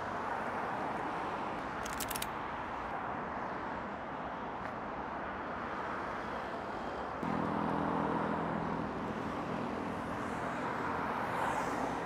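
Steady traffic noise from cars and vans passing on a busy multi-lane road. About two seconds in there is a brief rattle of clicks, and from about seven seconds in a louder vehicle passes with a steady engine hum for a few seconds.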